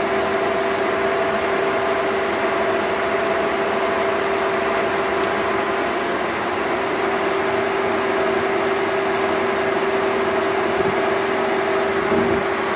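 Bullard Cutmaster 42 vertical turret lathe running under power: a steady mechanical hum of its drive and gearing, with two steady whining tones held throughout.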